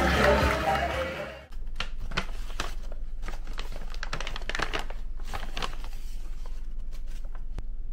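Paper shopping bags rustling and crinkling as a bottle is lifted out of them: a run of crisp crackles that stops near the end. Background music fades out over the first second and a half.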